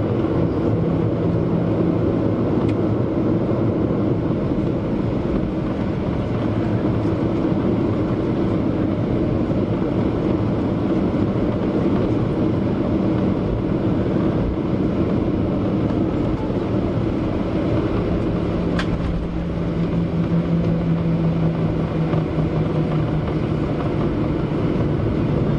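Cabin noise of a Boeing 737-900ER taxiing, heard from a window seat: a steady rumble and drone from its CFM56 engines at taxi power and the airliner rolling along the taxiway. A low hum grows stronger about three-quarters of the way through.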